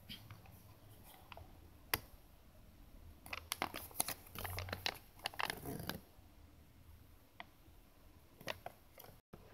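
Kinder Surprise paper instruction leaflet rustling and crinkling as it is handled and unfolded, with scattered small clicks. The rustling is busiest from about three and a half to six seconds in, with a sharp click near two seconds.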